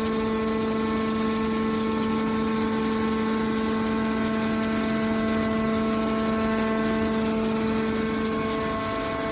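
Hydraulic baler's power unit running with a steady whine that holds one even pitch.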